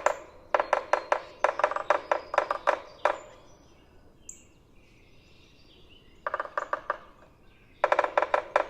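Yellow-bellied sapsucker drumming on wood: bursts of rapid knocks that break into uneven, Morse code-like taps, with a pause of about three seconds in the middle.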